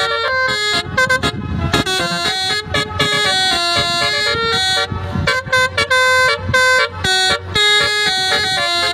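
Basuri telolet multi-tone air horn playing a quick melody, one note after another in rapid succession, with a low rumble underneath.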